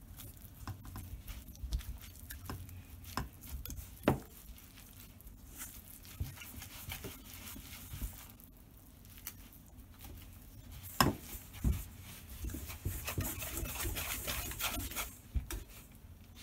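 Wire whisk stirring a stiff flour-and-butter cookie dough in a stainless steel bowl: irregular scraping and small clinks against the metal, with two louder knocks, about four seconds in and about eleven seconds in.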